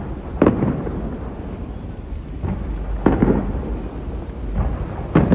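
Aerial fireworks shells bursting: three loud booms about two and a half seconds apart, each followed by a long low rumble.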